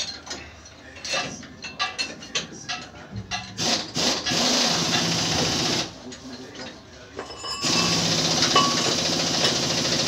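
Light metallic clinks and taps from hand work on a truck wheel hub, then a machine running steadily in two stretches: it starts about three and a half seconds in, stops for about two seconds, and starts again.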